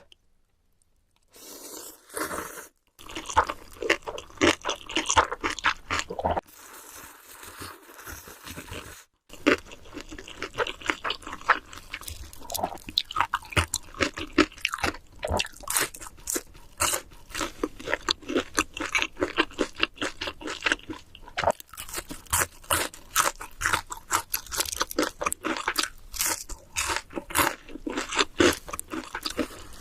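Close-miked chewing of big mouthfuls of instant noodles: a dense run of quick, wet mouth clicks and crunches that breaks off briefly twice, like edits between bites.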